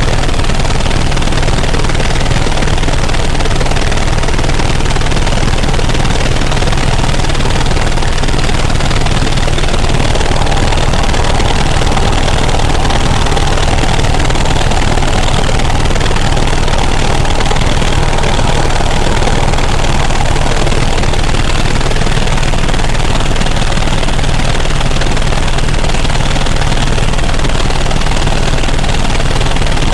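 Helicopter in flight: loud, steady engine and rotor noise with a fast, even rotor beat.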